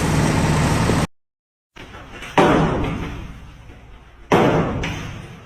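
A loud steady noise with a low hum that stops abruptly about a second in, then two heavy slams about two seconds apart, each dying away slowly.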